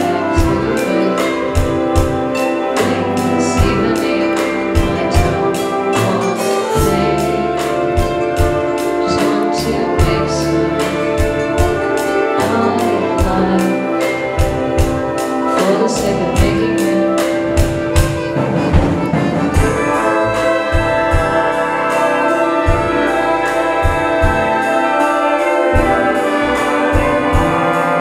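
A live mixed ensemble plays an instrumental piece over a steady beat. Double bass, accordion and brass are among the instruments, and the trumpets and trombones carry held notes that swell from about two-thirds of the way through.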